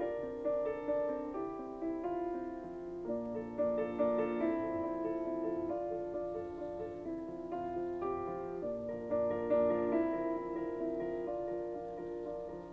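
Background piano music, a slow melody of held notes that change about once or twice a second.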